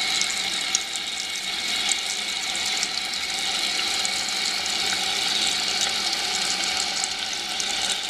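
Kohler Memoirs one-piece toilet tank refilling after a flush: the fill valve runs with a steady hiss of water, with a faint whine through it.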